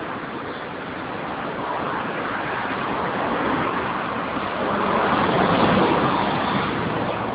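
Road traffic noise: a car passing on the street, its tyre and engine noise swelling to a peak about five to six seconds in and then easing off.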